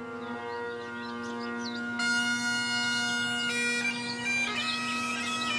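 Bagpipes playing a tune over their steady drone, the chanter moving through higher notes from about two seconds in.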